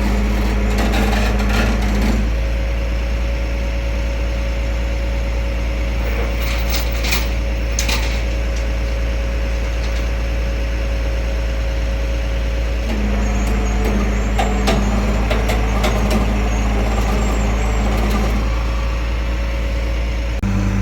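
Tow truck's engine running steadily while the pickup is loaded onto its bed, with a steady whine through the middle stretch and a few clicks and knocks.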